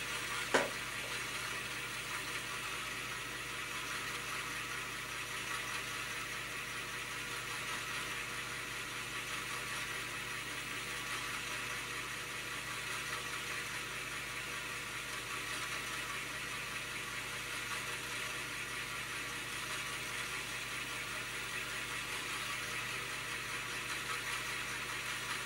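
Commodore 1571 floppy disk drive running steadily as it formats a disk, with one click about half a second in.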